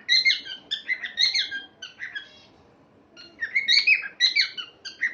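Small pet parrots chirping and chattering in quick, high notes, in two runs with a short lull a little after two seconds in.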